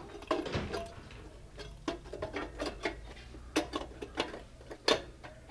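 Irregular metal clicks and knocks as a rice cooker's thermal sensor is seated in its sheet-metal housing base, with the loudest knock near the end.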